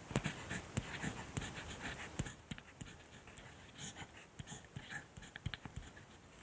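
Faint, irregular scratching and ticking of a pen writing on paper.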